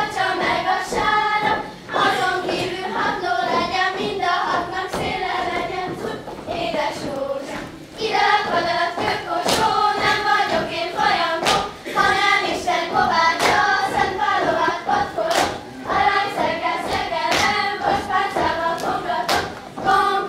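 A group of girls singing a Hungarian folk song together in unison as they dance a circle dance, with sharp thuds of their dance steps on the stage. The song pauses briefly between phrases about two seconds in and again around seven to eight seconds in.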